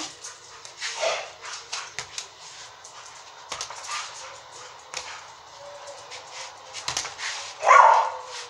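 Boxing gloves smacking a small punching ball on an elastic cord in a run of uneven hits, about one a second. A loud short call, more like an animal's bark than a word, comes near the end.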